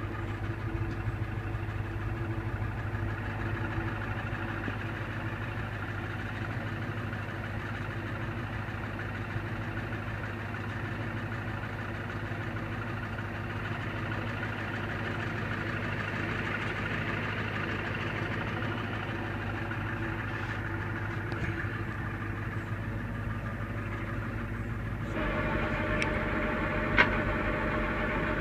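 Flatbed tow truck's engine running steadily while the bed and winch are worked. About 25 s in it gets louder and a higher steady tone joins, and a single sharp click sounds shortly after.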